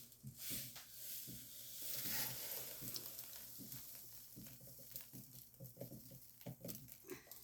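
Kitchen containers and packaging being handled: a rustling, pattering hiss that swells about two seconds in, with scattered light knocks and clicks.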